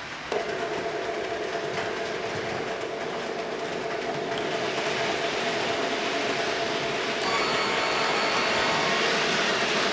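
HO scale model train running on track and growing louder as it comes closer, under the steady electronic locomotive sound of an MRC Symphony 77 sound system. The sound system's steady tones switch on sharply about half a second in, and further higher tones join about seven seconds in.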